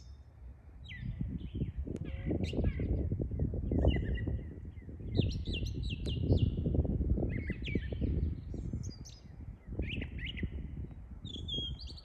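A songbird singing a long run of short, varied chirping phrases, each a little different, over a louder low rumble of wind buffeting the microphone that swells in the middle and eases toward the end.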